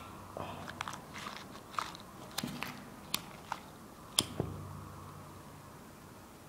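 Faint, irregular small clicks and crackles, about a dozen over the first four and a half seconds, then only quiet room tone: close handling noise, not firecracker bangs.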